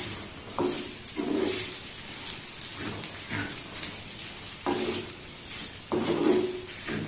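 A wooden spatula stirring and scraping a thick, frying pickle mixture in a clay pot over a gas flame, with a light sizzle underneath. The scraping strokes come irregularly, about one a second.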